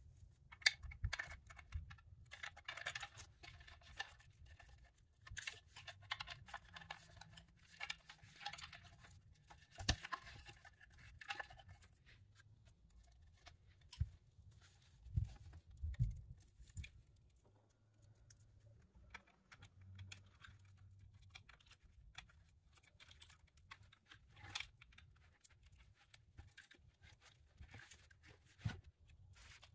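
Faint clicks, taps and rustles of plastic parts and wiring handled and fitted together by hand while a BMW pop-up navigation screen assembly is put back together, with a few louder knocks scattered through.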